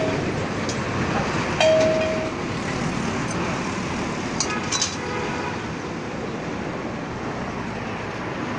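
Steady background noise around an engine being repaired, with a short ringing tone about one and a half seconds in and a few light metallic clinks of hand tools on the diesel engine a little before five seconds in.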